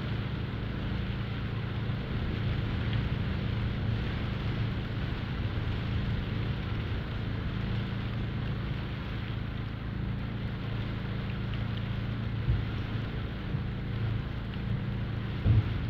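Steady rain falling on the shed, with a low steady hum underneath and a couple of faint knocks near the end.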